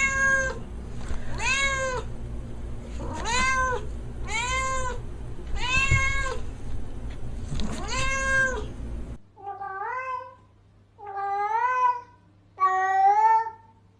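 Domestic cat meowing over and over, six meows about a second and a half apart, each rising then falling in pitch. About nine seconds in, the sound cuts abruptly to a different set of meows, three calls each rising and then holding.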